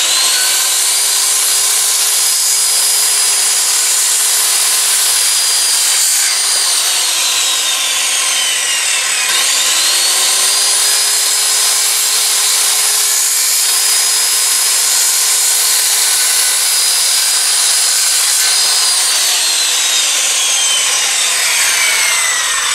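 Circular saw cutting lengthwise through a wooden board, the blade chewing through the wood with a steady motor whine. The whine slowly sags in pitch about a third of the way in, then quickly picks back up. Near the end it sags again as the saw winds down at the end of the cut.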